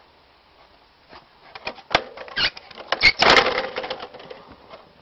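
Clattering of a homemade wooden and metal contraption: a quick run of knocks and clicks starting about a second and a half in, busiest and loudest around three seconds in, then dying away.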